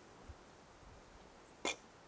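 A single short, sharp knock about one and a half seconds in.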